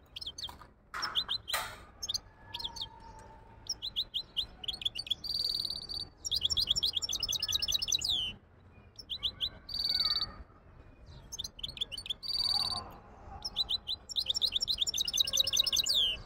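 Caged goldfinch hybrid singing a long, rapid song of fast trilled runs and sweeping notes, with a few held buzzy notes, in phrases broken by short pauses.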